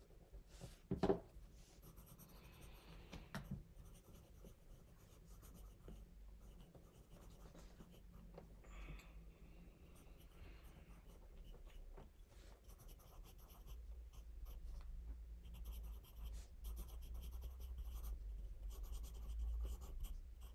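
Pencil scratching on notebook paper in faint, broken strokes as a child writes, with a soft knock about a second in.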